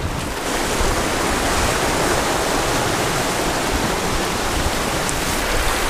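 Surf washing over shore rocks, a steady rush of moving water with no breaks.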